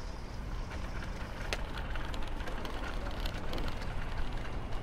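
Steady low rumble of riding a bicycle on city streets, with scattered light clicks and rattles.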